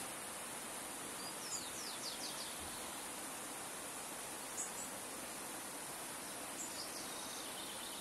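Shallow river water rippling over stones, a steady rushing murmur. Small birds chirp over it: a quick run of falling notes about one and a half seconds in, a brief high chirp near the middle, and another short run of notes near the end.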